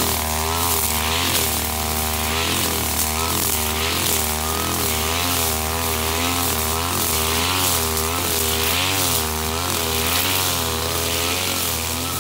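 Husqvarna 542RBS backpack brush cutter's two-stroke engine running at high revs, its pitch dipping and recovering about once a second. The swells come as the 3.5 mm trimmer line swings through thick grass, with a swish of cutting rising each time.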